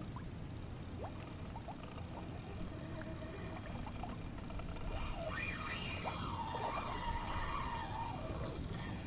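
Steady wind and water noise around a kayak on open water, with a low rumble on the microphone and faint wavering tones through the middle.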